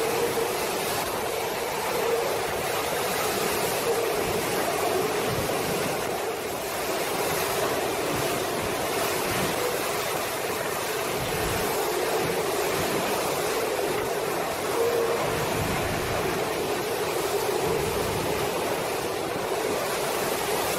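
Storm wind and heavy rain: a steady rushing noise, swelling a little now and then with the gusts.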